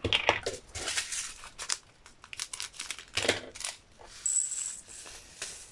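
Small plastic bag of diamond-painting drills crinkling as it is handled and opened, with irregular crackles and light clicks from small plastic storage jars, and a brief hiss near the end.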